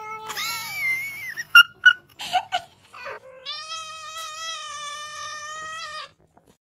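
A black-and-white domestic cat gives one long, steady meow of about two and a half seconds, starting about halfway through, while a hand pets its head. Before it come a few sharp knocks and a short noisy cry.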